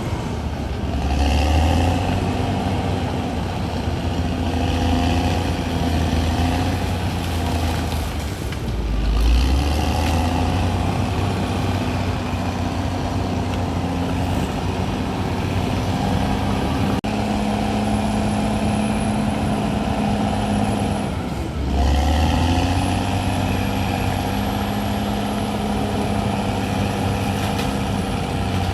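CAT D6R XL bulldozer's diesel engine running under load, its note rising and falling a few times as the load changes.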